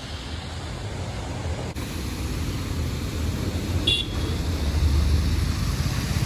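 Street traffic: engines of passing cars and motorbikes rumbling, growing louder toward the end, with a short high beep about four seconds in.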